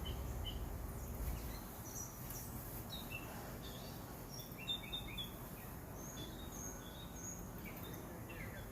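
Several small birds chirping, with short scattered chirps and calls over a steady background hiss. A low rumble fades out about a second in.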